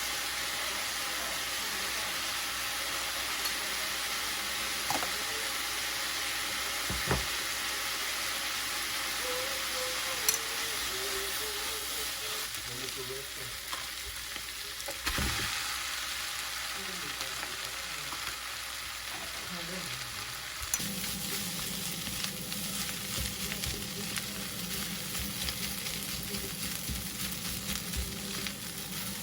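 Food sizzling steadily in a hot frying pan, with occasional clicks and scrapes of a utensil stirring it and a couple of dull knocks.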